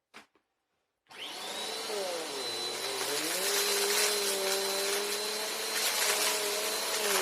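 Small upright vacuum cleaner switched on: after a short click, the motor starts about a second in, its whine rising quickly and then settling into a steady run, with its pitch dipping briefly a couple of times as it works.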